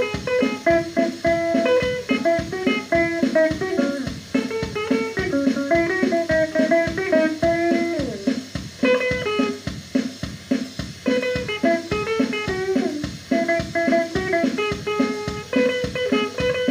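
Les Paul-style electric guitar playing a single-note melody, with a note sliding in pitch about eight seconds in, over a steady, even beat.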